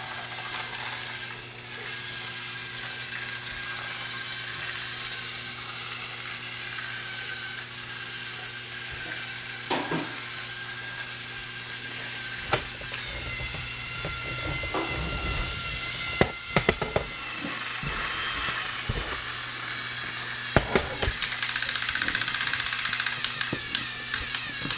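Small geared electric motors of battery-powered toy trains whirring steadily as the trains run on plastic track. Sharp clicks come now and then, and from a little past two thirds of the way in there is a fast clicking rattle.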